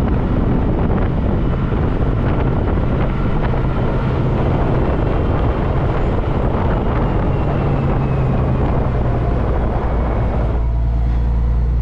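Semi truck (International ProStar tractor-trailer) driving at speed: a steady low engine drone under loud rushing road and wind noise. About ten seconds in the rushing noise eases and the low engine drone comes through steadier.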